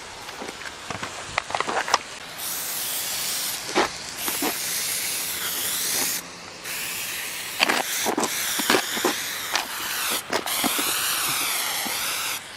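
Aerosol spray-paint can hissing in long bursts as orange lines are sprayed onto asphalt, starting about two seconds in, pausing briefly around six seconds, then running again until near the end. A few short clicks and taps fall between the bursts.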